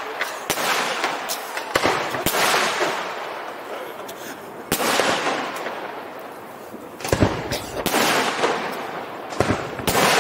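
Aerial firework shells bursting one after another, about a dozen sharp bangs, each followed by a fading rush of noise, with a quieter lull in the middle before a fresh volley.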